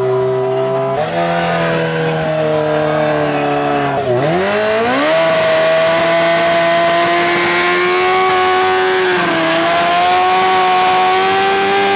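Suzuki sportbike engine held at high revs in a burnout, the rear tyre spinning on the pavement with a hissing scrub. The revs dip and climb back about four seconds in, then hold steady apart from a brief smaller dip later on.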